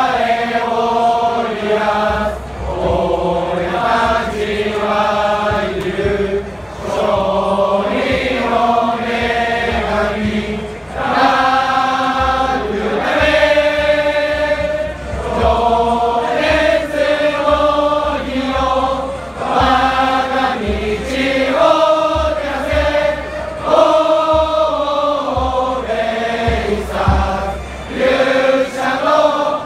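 Large crowd of baseball fans singing a player's cheer song in unison: a loud, rhythmic chanted melody that carries on throughout.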